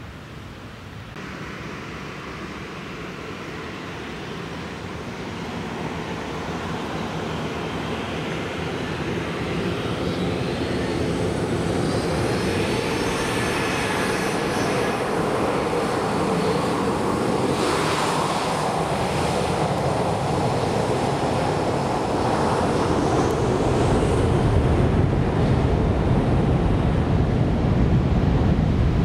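Boeing 737 jet engines spooling up for takeoff: a high whine over jet noise that grows steadily louder, with a deep rumble building near the end as the aircraft begins its takeoff roll.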